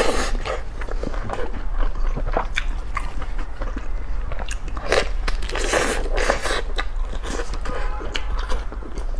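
Close-miked biting and chewing of a vegetable-stuffed sausage: a dense run of wet smacks and sharp little clicks.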